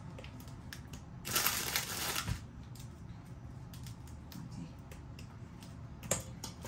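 Oreo cookies being broken up by hand over a mixing bowl: small crisp snaps, and a longer crunch about a second in.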